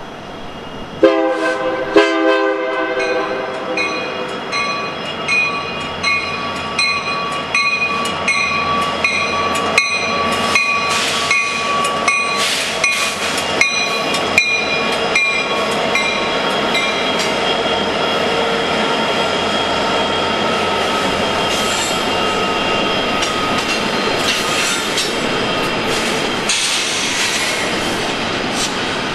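Union Pacific double-stack container train passing through: two short horn blasts about a second in, then the lead diesel locomotives go by with rapid clicking of wheels over rail joints and a steady wheel squeal, easing after about 17 seconds into the even roll of the container cars.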